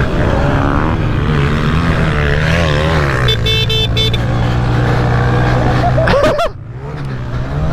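Motor sound from bikes riding a dirt track, its pitch wavering up and down. The sound drops away briefly about six and a half seconds in, then picks up again.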